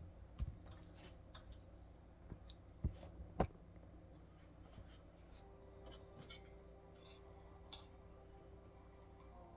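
Faint handling sounds: a few sharp knocks and clicks, the loudest about three and a half seconds in, with light scraping and a faint steady hum in the second half.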